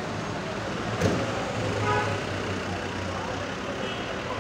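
Road traffic: vehicle engines running steadily, with a short sharp knock about a second in.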